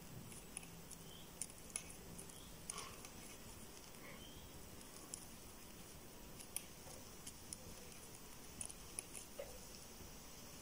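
Faint, irregular small clicks and rustles of a crochet hook working yarn, as double crochet stitches are made one after another along a chain.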